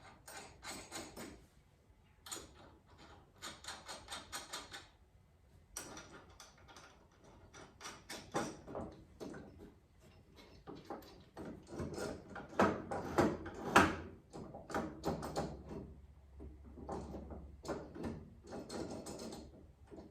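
Repeated bursts of rapid mechanical clicking and clattering, each run lasting a second or two, with short pauses between; the loudest run comes about two-thirds of the way through.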